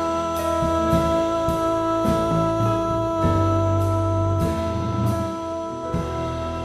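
Live jazz band playing an instrumental passage without vocals: a long held chord over a moving bass line, with drum-kit cymbal strokes recurring through it.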